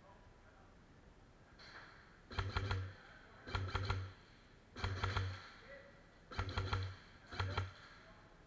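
Airsoft electric rifle firing five short bursts, each about half a second of rapid clicks over the gearbox motor's hum.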